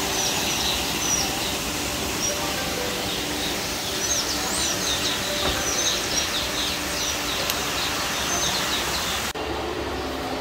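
Small birds chirping over a steady wash of background noise. The quick, high chirps come in a dense run in the middle of the stretch, and the background changes abruptly near the end.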